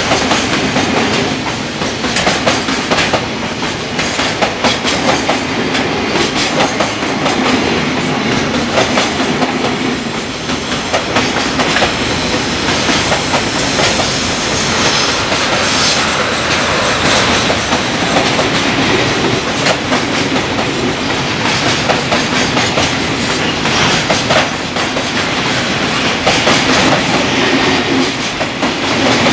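Loaded container flatcars of a long freight train passing at speed, the wheels clattering steadily over the rail joints in a continuous clickety-clack.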